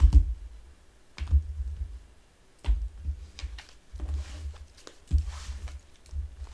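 Tarot deck being handled and shuffled, with a series of dull low thumps about once a second and light clicks and rustles between them.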